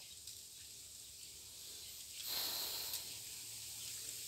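Plastic mesh netting rustling as a puppy squeezes under it, with a short, louder hissing rustle about two seconds in over a faint steady hiss.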